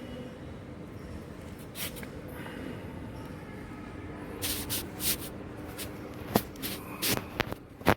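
Handling noises in a workshop: a series of short sharp clicks and knocks, like tools or metal parts being picked up and set down, over a steady faint hum, coming in the second half.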